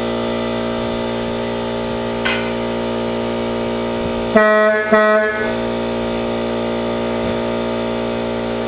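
Air horn sounding a steady multi-note chord, with two short, louder blasts about four and a half and five seconds in.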